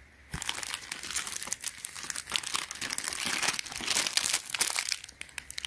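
Clear plastic bag crinkling as a packaged belt is handled and turned over inside it: a continuous run of fine crackles that starts just after the beginning and dies away shortly before the end.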